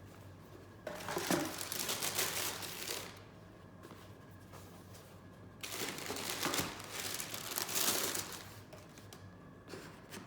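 Shoe-box packing paper being crumpled and handled, crinkling in two bursts of a few seconds each, with a brief rustle near the end.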